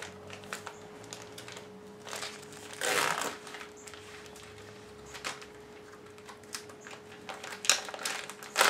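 Crinkling and rustling of the plastic packaging of precooked bacon as slices are pulled out, in short irregular handling noises with a louder rustle about three seconds in and a run of small clicks near the end.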